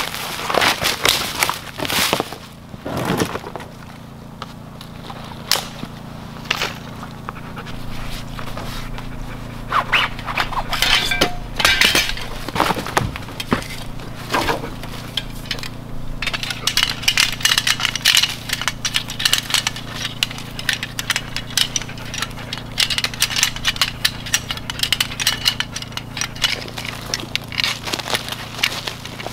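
Boots crunching through dry leaf litter and sticks cracking and snapping, with rapid scraping and clicking through the second half, over a low steady hum.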